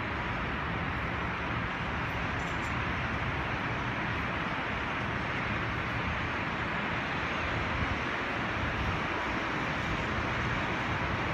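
Steady hum of distant city road traffic, even and unbroken, with a low rumble beneath.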